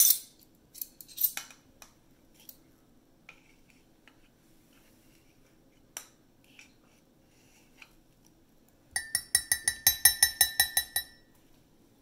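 Metal measuring spoons clinking: a few scattered light clicks, then about nine seconds in a quick run of ringing metallic clinks lasting about two seconds.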